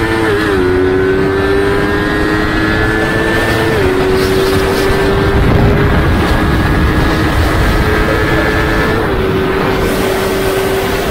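Yamaha MT-25's 249 cc parallel-twin engine at full throttle, its note climbing in each gear and dropping sharply at upshifts about a second in, near four seconds and near nine seconds, as the bike accelerates past 150 km/h. Steady wind rush over the rider's camera throughout.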